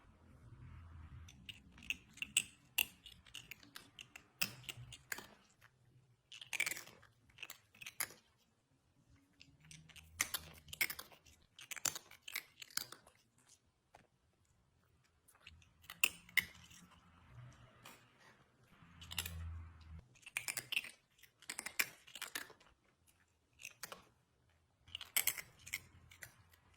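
Chewing and crunching: irregular clusters of sharp crunches and clicks, with short pauses between them.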